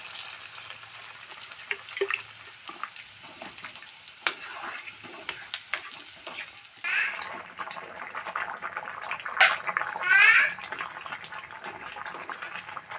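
Wooden spatula stirring bottle gourd and lentils in a watery curry in a metal karahi, with scattered clicks and scrapes against the pan over liquid sloshing. Two brief high-pitched calls about seven and ten seconds in.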